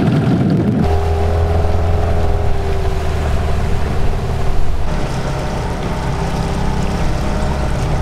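Inflatable dinghy's outboard motor running steadily underway, its note shifting slightly about five seconds in.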